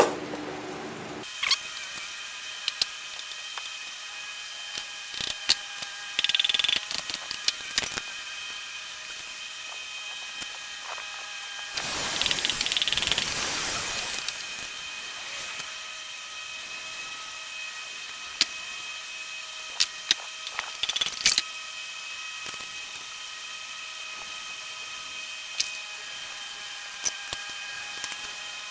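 Metal hand tools clicking and clinking, with ratchet-like clicks, as an engine is taken apart; scattered knocks, a few short rattles, and a couple of seconds of hissing noise near the middle, over a steady faint high hum.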